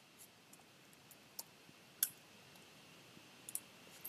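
A few faint, scattered clicks of a computer keyboard being typed on, with one louder key press about two seconds in and two quick ones near the end.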